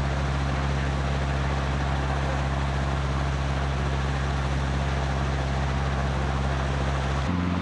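An engine running steadily at a constant low hum, its pitch shifting suddenly near the end.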